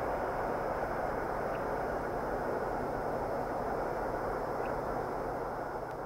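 Steady rolling rumble of a Union Pacific double-stack intermodal train running on the rails, easing slightly near the end.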